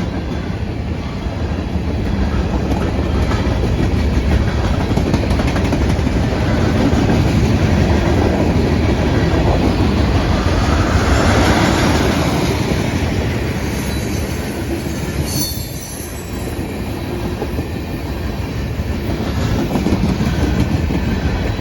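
Canadian Pacific manifest freight train rolling past close by, its cars clattering steadily over the rails. It swells louder in the middle, with a brief high squeal about fifteen seconds in.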